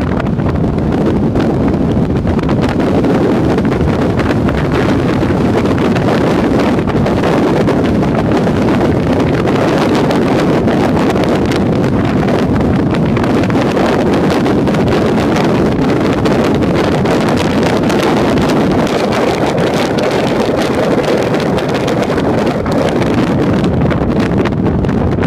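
2013 Porsche Boxster's flat-six engine running with wind and road noise, heard from inside the car at steady pace-lap speed. Wind buffets the microphone throughout.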